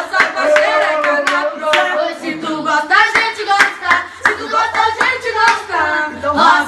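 Voices singing a funk verse over sharp hand claps keeping a beat.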